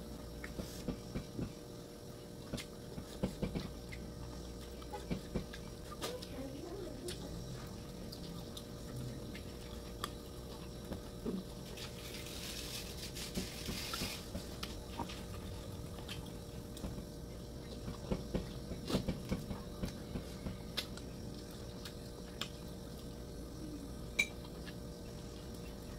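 Close eating sounds of a person eating rice and squirrel curry by hand: scattered soft clicks and smacks of chewing, with an occasional clink of a spoon against a bowl. A brief rustling scrape comes about halfway through.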